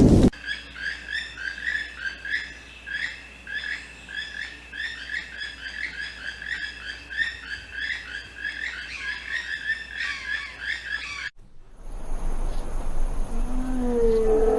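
Rapid high chirps from an animal, several a second, over a faint steady high tone; they stop abruptly. Near the end, a lower held call begins.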